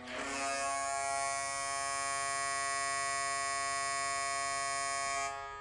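Columbus Blue Jackets goal horn played from a goal horn app through a phone's small speaker: one steady, buzzy blast of about five seconds that fades out near the end.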